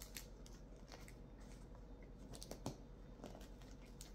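Cat biting and chewing at a braided challah through its plastic bag: faint, irregular crinkles and crackles of the plastic, the loudest about two and a half seconds in.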